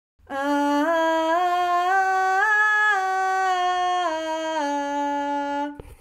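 A woman's singing voice holding one continuous note that steps up a short scale note by note to a peak about halfway through, then steps back down and stops just before the end.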